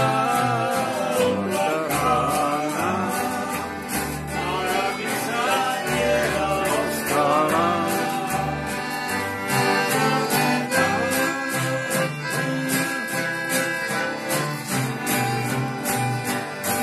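Live acoustic folk band playing a lively tune: strummed acoustic guitar keeping a steady beat, piano accordion and plucked upright double bass. A man's voice sings over it through roughly the first half, and the accordion holds a long high note later on.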